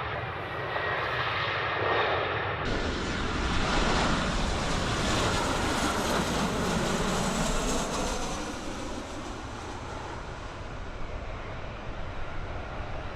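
An airliner's engines roaring as the plane passes close by, swelling to their loudest midway and then fading with a falling whine. There is an abrupt change in the sound about two and a half seconds in, where one recording cuts to another.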